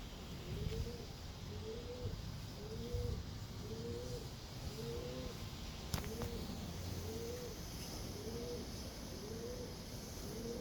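A bird calling a long, steady series of short, low hooting notes, each rising then falling in pitch, about one a second. A single sharp click about six seconds in.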